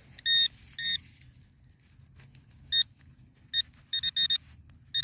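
A metal detecting pinpointer beeping: short high beeps all of one pitch, a few spaced-out ones, then a quicker run near the end as it closes on the target in the hole.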